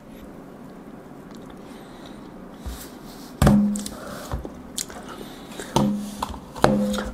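A phone and a sandwich handled on a desk: soft knocks and taps from about three seconds in, with a few short low hums in between.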